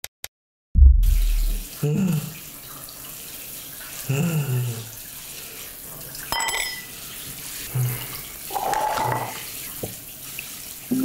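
Handheld shower head spraying water steadily, after a heavy low thud about a second in. A few short low sounds come through the spray.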